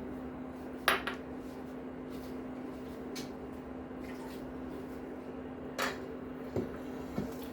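Kitchenware clinking against a cooking pot: a sharp clink about a second in and three more near the end, over a steady low hum.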